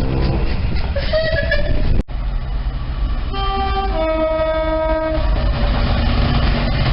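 Train horn sounding two notes, a short higher chord then a longer lower one, over the steady rumble of the train. The sound changes abruptly at an edit about two seconds in, before the horn.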